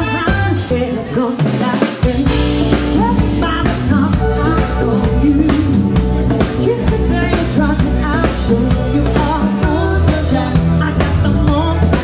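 Live band playing: a woman singing over a Nord stage keyboard and a drum kit. Shortly before two seconds in the low end drops away briefly, then the full band comes back in at about two seconds.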